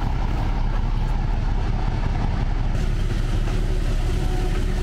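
Train's diesel locomotive running steadily with a deep engine rumble as it passes close by on the track.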